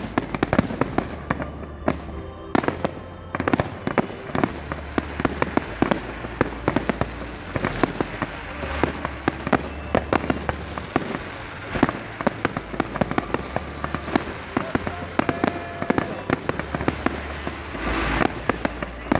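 Aerial fireworks going off in quick succession: a dense, continuous string of sharp bangs and crackles, several every second, from shells launching and bursting.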